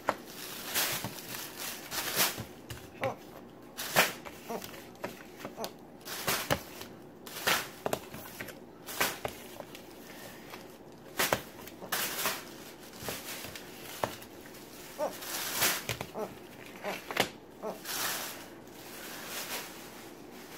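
Thin plastic grocery bag rustling and crinkling, with irregular sharp clicks and taps as small plastic chapstick tubes are dropped into it.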